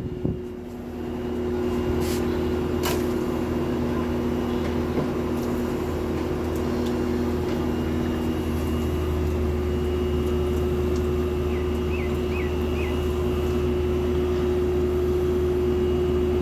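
Lloyd 1.5-ton inverter split AC outdoor unit running with a loud, steady, high-pitched hum over a low drone; a second, lower tone in the hum drops out about halfway through. The owner takes this "train horn like" hum for a defect present since installation that two service visits have not cured.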